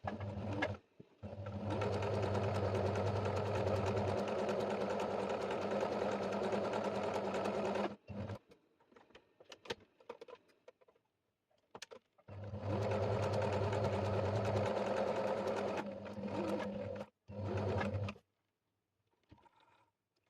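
Electric sewing machine stitching net fabric. It runs steadily in two long stretches, about six seconds and about five seconds, each with short stops and starts, and there are a few sharp clicks in the pause between.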